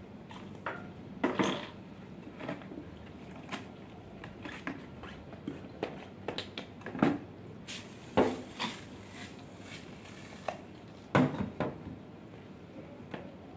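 Irregular knocks, clatters and scrapes of cleaning gear being handled and a long-handled mop worked against a car's body, with a few much louder thumps among them.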